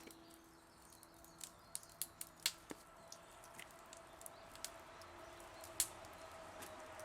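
Wood campfire crackling faintly, with sparse, irregular sharp pops.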